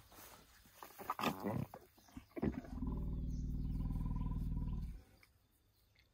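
Young African elephant calf rumbling: one steady, very low call of about two seconds with an even pitch, starting a little under three seconds in, preceded by a few soft knocks and rustles.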